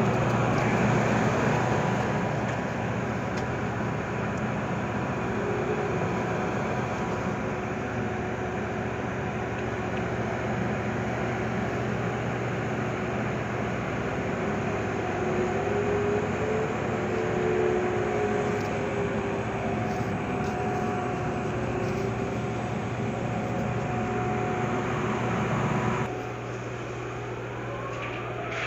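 Floating crane machinery running under load during coal loading: a steady din of engine and winch noise with a low hum and a faint whine that wavers in pitch. About 26 seconds in the din cuts off abruptly, leaving a quieter hum, and a rising whine starts near the end.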